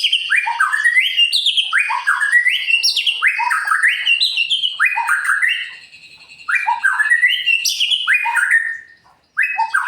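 White-rumped shama (murai batu) in full song, repeating loud phrases of quick sweeping notes that rise in pitch, about one phrase a second, with brief pauses about six and nine seconds in.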